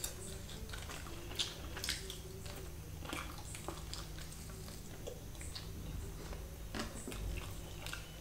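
Close-up chewing and biting of a cooked chicken piece from chicken biryani: faint, scattered mouth clicks and smacks.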